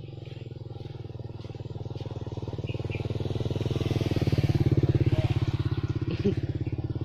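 A motorcycle engine passing close by, growing louder to a peak a little under five seconds in and then fading, with one short knock about six seconds in.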